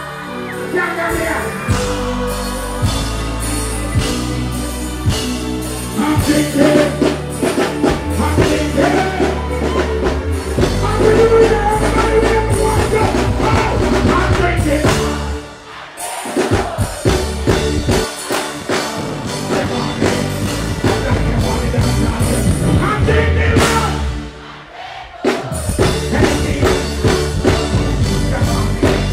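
Reggae/dancehall music through a stage sound system with a steady beat and a performer singing into the microphone. The music drops out briefly twice, about halfway through and again later, then comes back in.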